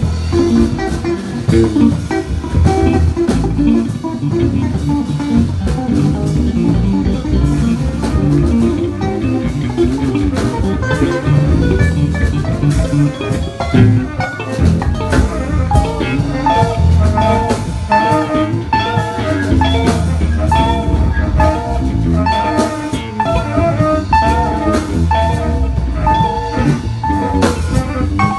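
Small instrumental jazz band improvising a syncopated groove on guitar, bass and drum kit, with a line of held melody notes coming in about halfway through.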